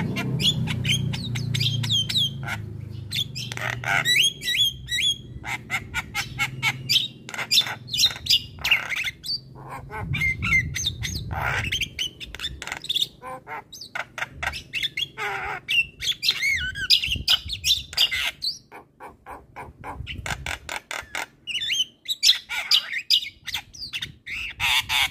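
Javan myna singing a long, varied song of rapid clicking and chattering notes mixed with short gliding whistles. There is a brief lull about three quarters of the way through.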